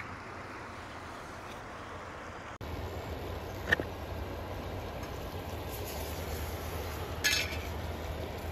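Soft riverside ambience, then a small camp stove burning steadily under a metal pot of water near the boil. The pot lid gives a sharp metallic clink about a second after the change, and another near the end as it is lifted off.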